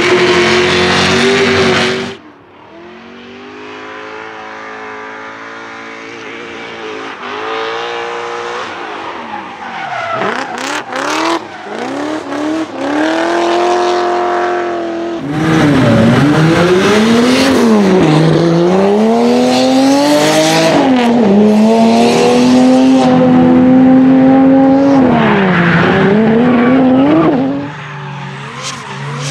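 Engine-swapped BMW E30 drift cars revving hard at full throttle, the engine pitch repeatedly climbing and dropping as they slide sideways with the rear tyres spinning and smoking. The engine is loud at first, fainter and farther off for a long stretch, then loud and close again before dropping back near the end.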